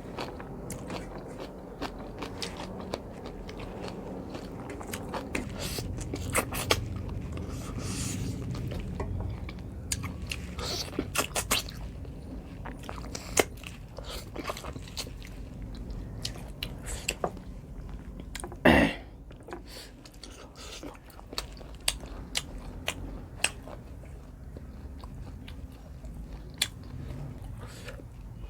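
Close-miked chewing and biting of pork curry with rice, with many short mouth clicks. There is one louder sharp sound about two-thirds of the way through.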